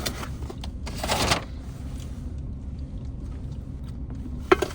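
Steady low rumble of an idling vehicle heard from inside the cab, with a brief rustle of paper food wrapping about a second in and a few small clicks and knocks near the end.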